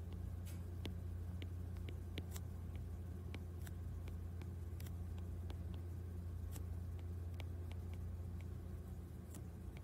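Faint, irregular light taps of a stylus on a tablet's glass screen during handwriting, over a steady low hum.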